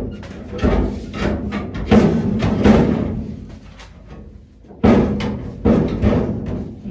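Background music with heavy drum hits over a held low note.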